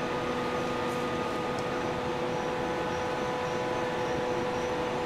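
A steady machine hum with a constant mid-pitched tone and a faint high whine, unchanging throughout.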